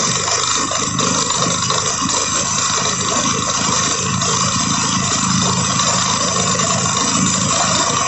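High-pressure borewell drilling rig running under load: a loud, steady, dense noise with a fluctuating rumble underneath.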